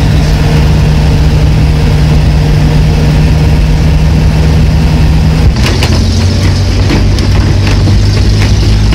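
A vehicle's engine runs steadily while it drives over a rough dirt field track. About five and a half seconds in, the engine note drops lower, and after that the body rattles and knocks over the bumps.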